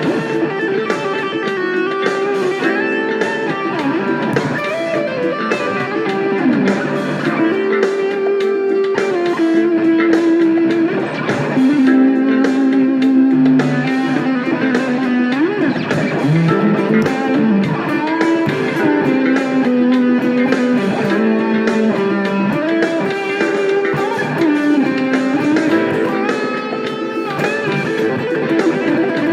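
Electric guitar played through a Fuzz Face Mini fuzz pedal, improvising a lead in A minor. It plays held, sustained notes with several string bends that slide up and down in pitch.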